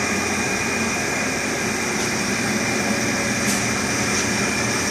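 Steady mechanical hum and hiss of electric potter's wheels running as clay is thrown, with a faint steady high whine.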